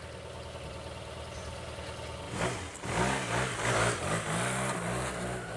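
Motor scooter engine running low and steady, then revving up and pulling away about two and a half seconds in, its pitch rising and falling.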